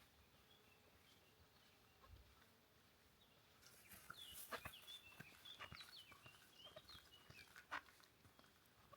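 Faint high-pitched animal squeaks: a run of short chirping calls that bend in pitch, starting about four seconds in, with a few light clicks among them.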